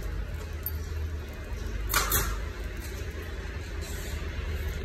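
Synthetic resin wicker strands scraping and rustling as they are pulled through the weave on a metal chair frame, with one sharp swish about two seconds in, over a steady low rumble.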